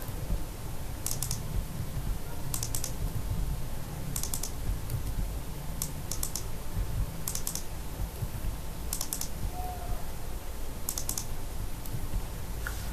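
Computer keyboard and mouse clicks while code is edited: short runs of three or four quick clicks every second or two. A steady low hum runs underneath.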